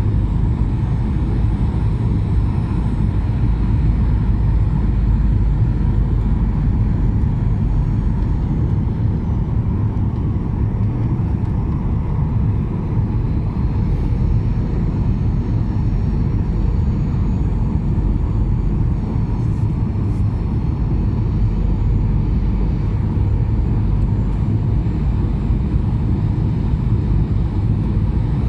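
Steady jet engine and airflow noise inside the cabin of a Skymark Boeing 737-800 on final approach: a deep, even rumble with faint high thin whistling tones above it.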